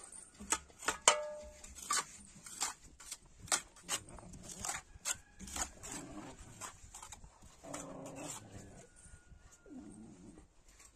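Young dogs giving a few short whines and yelps, over repeated scraping and scuffing of a hand shovel scooping dog droppings from dry, dusty ground.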